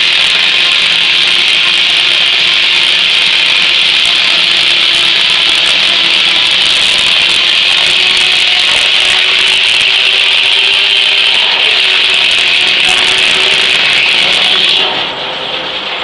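Large circular saw blade of an 1880s Gaar Scott sawmill cutting steadily through a big ash log, loud and even. Near the end the blade clears the cut and the sound drops off.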